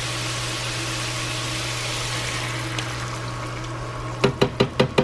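Minced garlic sizzling in avocado oil in a frying pan, a steady hiss over a low hum. About four seconds in, a quick run of knocks as a spoon scrapes crushed tomatoes out of a can into the pan.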